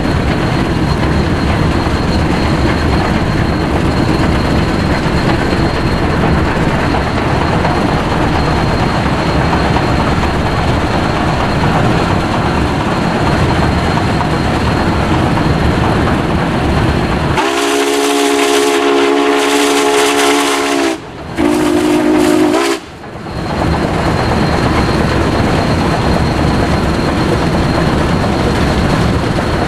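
Heavy wind buffeting on a built-in camera microphone and running noise from a car pacing a train. About 17 seconds in, Union Pacific 844's steam whistle sounds a long chime chord for about three and a half seconds, then a shorter, lower blast.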